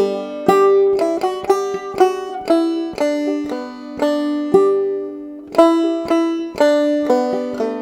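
Banjo played clawhammer style, a simple tune of plucked notes that each ring and fade, with one longer held note about halfway through.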